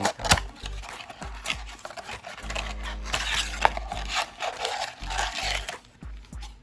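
A trading-card blaster box being handled and opened: crinkling, rustling and tearing with scattered sharp clicks and taps.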